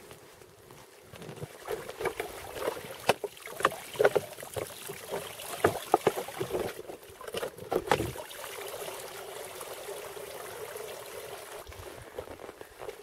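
Water sloshing in an ice-fishing hole as a wooden pole and the set line tied to it are hauled out through it, with scattered knocks and scrapes of the pole against the ice during the first half; after that the handling is quieter and steadier.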